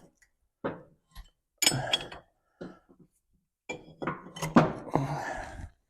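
Metal tools and parts clinking and knocking as they are handled: a few separate short knocks, then a busier clatter with one sharp clink in the last two seconds.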